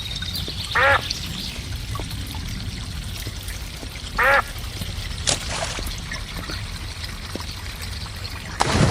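Duck quacking twice, single short quacks about three and a half seconds apart, over steady running water, with a short rushing splash-like burst near the end.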